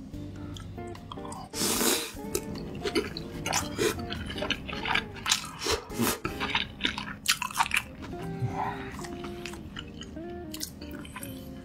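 Close-miked chewing of salmon steak with sautéed spinach: a run of quick wet mouth clicks and smacks, over soft background guitar music.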